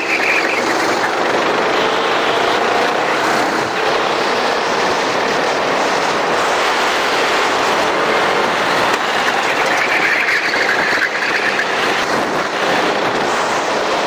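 Racing kart engine running flat out in a race heat, its pitch rising and falling through the corners over a steady noisy rush.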